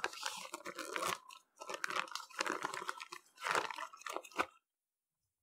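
Vacuum-sealed plastic bag crinkling and tearing as it is opened by hand, in irregular crackly bursts that stop near the end.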